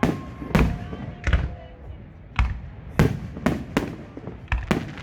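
Aerial fireworks shells bursting in quick succession: a string of sharp booms, about nine in five seconds at uneven intervals, each trailing a short rumble.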